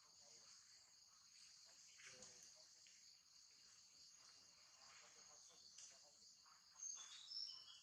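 Faint, steady, high-pitched insect chorus, with a few brief high notes near the end.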